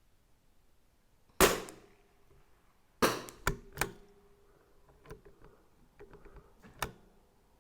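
A single shot from a CZ 457 AT-ONE bolt-action .22 LR rifle, a sharp crack with a short ring, about a second and a half in. It is followed by a string of sharp clicks and knocks, the loudest about a second and a half after the shot and several fainter ones later.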